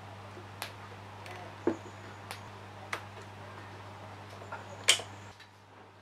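Hands working the wiring of a washing-machine motor inside a wooden housing: about five short clicks and taps from wires and connectors being handled, the loudest near the end. Under them runs a steady low hum that stops near the end.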